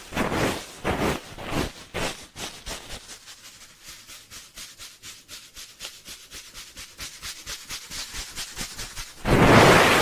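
ASMR 'helicopter' ear rubbing: hands rubbing over the ears of a binaural microphone. Separate strokes at about two a second give way, about three seconds in, to a fast, even flutter of rubs. Near the end comes one loud, sustained rub.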